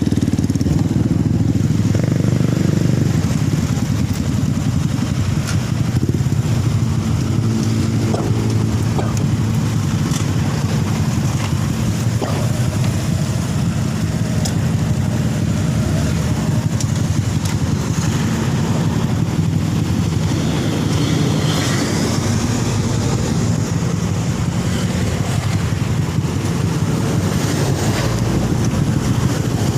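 Vehicle engine running steadily at a constant pace on the road, with road and wind noise.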